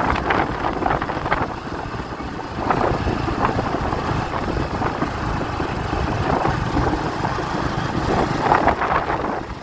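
Strong wind rushing over the microphone of a moving motorbike, with the bike's engine and road noise running steadily underneath.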